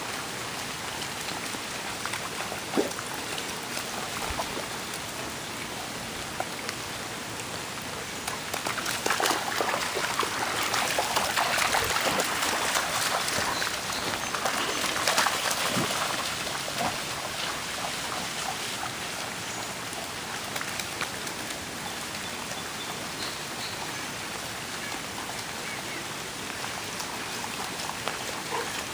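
Steady rain pattering on a flooded lawn. For several seconds in the middle, about 9 to 16 seconds in, it grows louder and busier with splashing as golden retrievers run through the standing water nearby.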